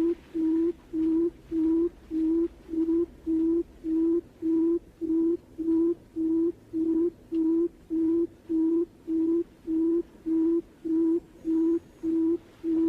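Barred buttonquail's low hooting call: an even string of short, steady-pitched hoots, about two a second.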